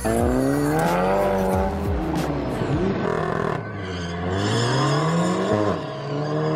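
Car engine accelerating hard from a launch: the pitch rises for about two seconds, drops at a gear change, then climbs again.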